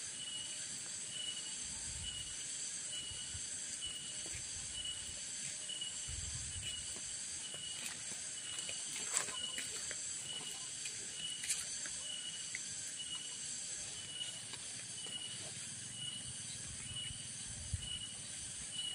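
Steady insect chorus: a high, even hiss with a short shrill note repeating about once a second. A few faint clicks sound near the middle.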